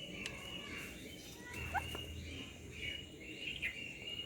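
Parrot making short, repeated chirping calls, with a quick rising squeak and a couple of sharp clicks.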